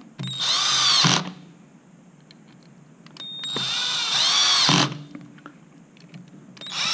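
Cordless drill-driver running in short bursts as it drives screws into a plastic accessory mount, on a low torque setting. There are two runs of a second or so and a third starting near the end, each a motor whine that rises and falls in pitch.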